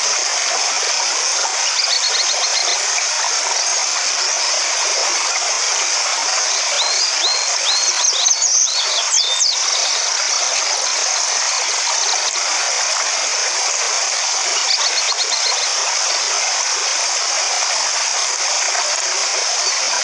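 A small stream cascading over rocks with a steady rush of water, and birds chirping over it: a quick trill about two seconds in, a cluster of sweeping chirps around eight to nine seconds, and another quick trill near fifteen seconds.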